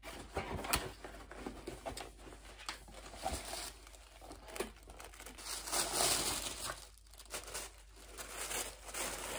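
A cardboard mailer box being opened, with the tissue paper inside rustling and crinkling as it is unfolded, plus a few sharp clicks of handling. The rustling is loudest about six seconds in.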